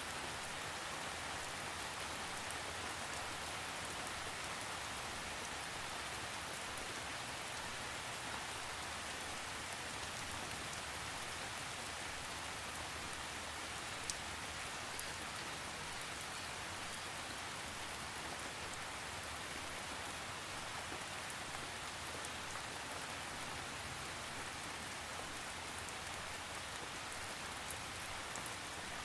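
Steady rain with no thunder, an even hiss with scattered drop ticks, one a little sharper about halfway through.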